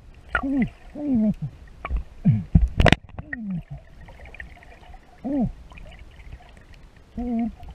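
Short, muffled, hoot-like vocal calls, about six of them, each falling in pitch, heard through an underwater camera housing. A few sharp knocks of water and hands against the camera come in the first three seconds.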